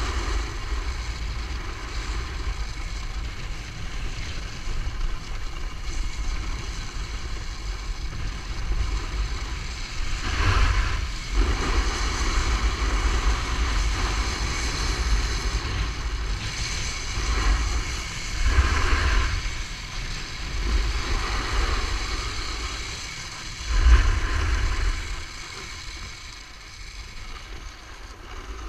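Ski-doo snowmobile engine running steadily ahead on the tow rope, mixed with wind buffeting the microphone and skis running over groomed snow, with a few stronger gusts. It gets quieter near the end as the tow slows.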